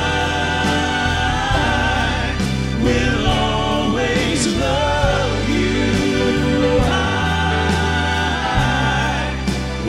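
Male vocal quartet singing a gospel song in close harmony, with a live band of piano, bass guitar and drums. Several voices hold and glide between notes, some with vibrato.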